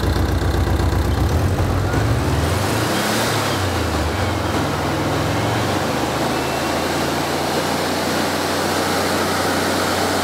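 Air-cooled flat-four engine of a fuel-injected Mexican VW Beetle running in the workshop. About two seconds in its speed rises, then holds steady at the higher speed. Its oxygen sensor reads lean at this point.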